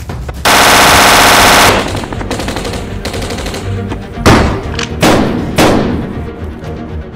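Gunfire: a rapid burst of automatic fire lasting just over a second, starting about half a second in, then three single shots a little over half a second apart near the end, each with a short echoing tail. Background music runs underneath.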